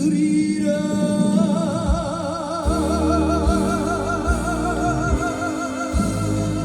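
Live trot ballad: a male singer sings a line and then holds one long note with a wide, even vibrato for several seconds, over a backing band with a kick drum beating slowly and steadily.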